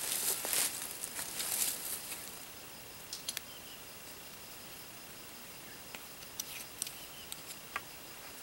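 Rustling of dry leaves and brush for the first two seconds, then scattered light crackles and clicks of footsteps on dry forest leaf litter.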